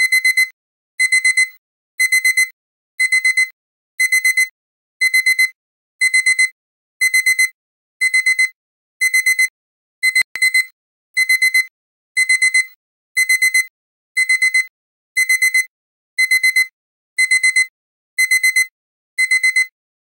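Digital alarm-clock beeping that signals the countdown timer has run out at zero: a high-pitched beep in quick groups of four, about one group a second.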